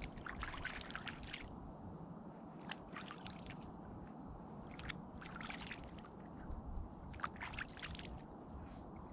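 Water lapping and trickling in short bouts roughly every two seconds, over a steady low background noise.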